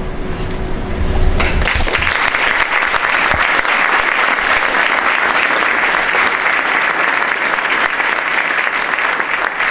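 Audience applauding, starting about a second and a half in as the last notes of background music fade out.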